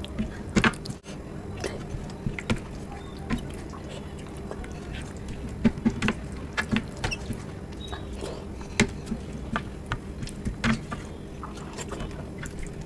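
Close-up eating sounds: wet, sticky smacks and clicks of chewing dal khichdi and of bare fingers mixing and squeezing it on a plate, coming irregularly several times a second.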